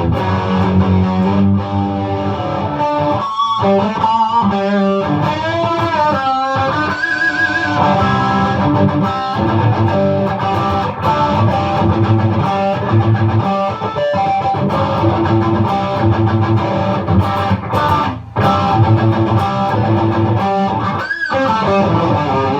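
Electric guitar with a Seymour Duncan Invader bridge pickup played through a Blackstar tube amp's overdrive channel with the voice switch on, giving a high-gain, modern metal tone. Low-note riffing, with bent, wavering lead notes a few seconds in.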